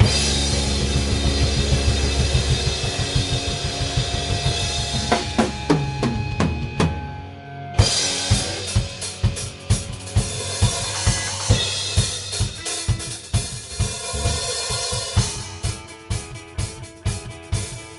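Rock band playing live with electric guitars and a drum kit. A loud held chord rings out and slowly fades over the first seven seconds or so. After a brief drop, the drums come in with a steady beat of about two hits a second under quieter guitar.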